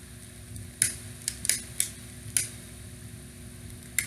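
Utility lighter's trigger clicked about six times, each a sharp click of its spark igniter, over the steady hum of an electric fan. The flame doesn't catch because the fan's draft blows across it.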